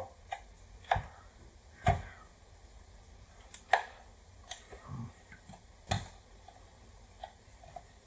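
Thin metal pick clicking and scraping against the inner metal shield and plastic casing of an Apple power adapter as it is pried loose: about ten sharp, irregular clicks, the loudest about two, four and six seconds in.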